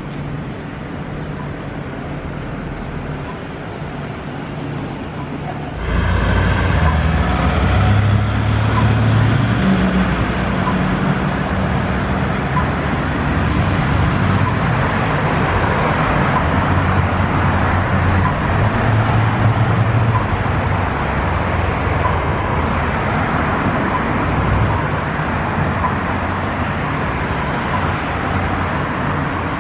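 Road traffic noise: a steady wash of passing vehicles that jumps suddenly louder about six seconds in, with a low engine hum running under it.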